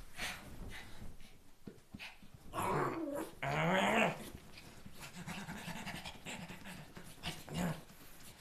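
Small dog growling and snarling at a hand teasing it, with panting between the growls; the two loudest snarls come about three seconds in. The fury is play: the dog is being wound up in fun.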